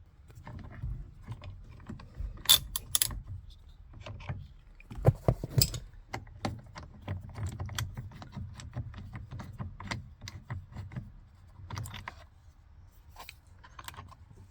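Ratchet wrench with a socket clicking in quick runs as the steering wheel's center bolt is worked loose, with sharper metallic clinks of the tool.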